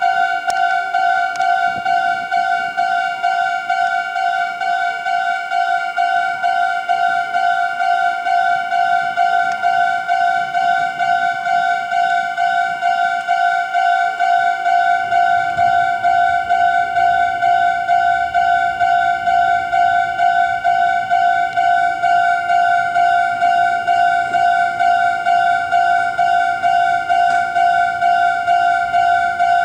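Japanese railway level-crossing electronic warning bell ringing steadily, a repeated ding at about two strikes a second. About halfway in, a low rumble of the approaching train joins it.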